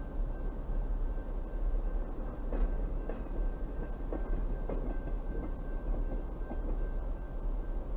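Freight train of container cars rolling slowly past: a steady rumble of wheels on rail with scattered clicks and knocks.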